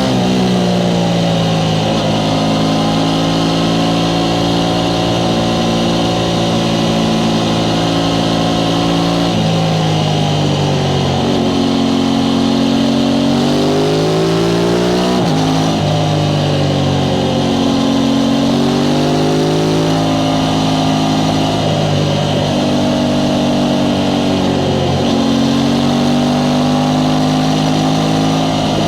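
Aprilia Tuono 660 Factory's parallel-twin engine running through its stock exhaust. It holds steady revs, then the revs fall and climb again several times.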